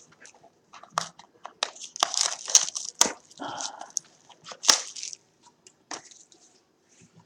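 A trading-card pack's wrapper being opened and handled: irregular crinkling and rustling with a few sharp snaps.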